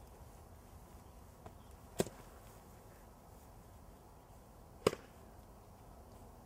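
Two sharp, short knocks or whacks, about three seconds apart, over a quiet background.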